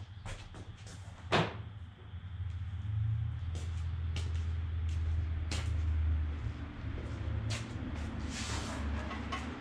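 Plastic front bumper cover of a 2000 Honda Civic being carried and set down on a concrete garage floor: one sharp knock about a second in, then several lighter knocks and clicks and a brief rustle near the end, over a steady low rumble.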